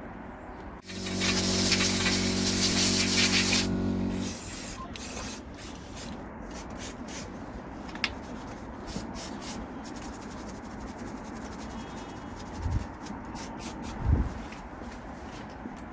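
An aerosol spray can hissing in one loud burst of about three seconds, with a low buzzing tone under the hiss. It is followed by quieter rubbing and scattered small clicks and knocks of handling bike parts.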